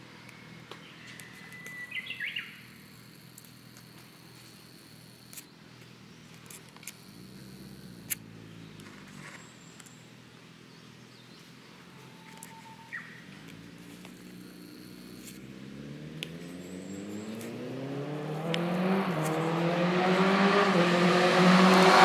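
A motor vehicle's engine approaching and accelerating, its pitch rising and growing steadily louder over the second half until it cuts off abruptly. A small bird chirps briefly a couple of times earlier on.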